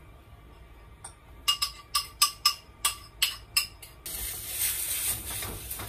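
About eight sharp clinks, roughly three a second, as the last pancake batter is tapped out of a bowl over a frying pan. Then a steady hiss, the batter sizzling in the hot oiled pan.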